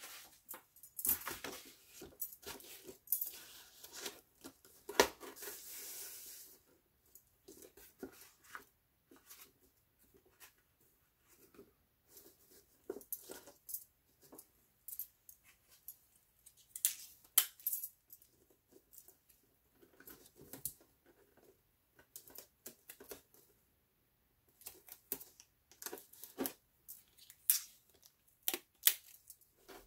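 Paper handling: a brown paper bag rustling and crinkling as it is laid flat and smoothed, with scattered light clicks and taps throughout. The rustling is densest in the first six seconds.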